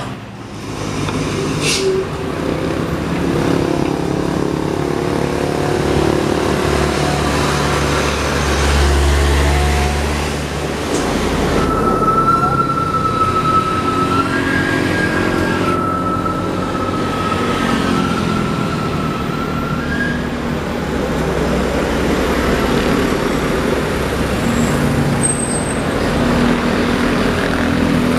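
Heavy diesel trucks climbing a hill in slow traffic, engines running under load, with motorcycles passing close by. A deeper rumble swells about a third of the way in. A thin steady whine then holds for several seconds through the middle.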